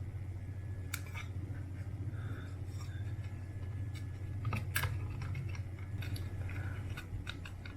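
Light clicks, taps and scrapes of small plastic drone shell parts being handled and taken apart, with a few sharper clicks about halfway through, over a steady low hum.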